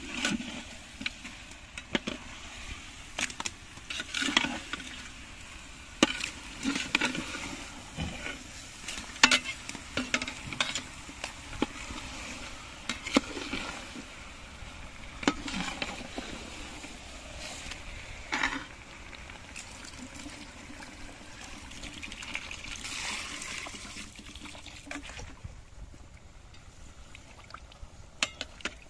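Raw chicken sizzling in hot mustard-oil masala in a large aluminium pot, with frequent clinks and scrapes of a metal slotted spoon against the pot as the chicken is stirred.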